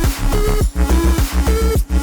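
Background electronic dance music with a steady beat, deep bass and synth notes.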